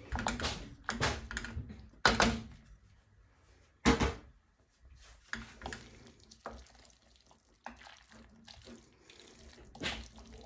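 Drained tagliatelle tipped from a stainless steel colander into a pan of creamy sauce, with a few knocks, the two loudest and sharpest about two and four seconds in. Then a wooden spoon stirring the pasta through the sauce in quieter, wet, repeated strokes.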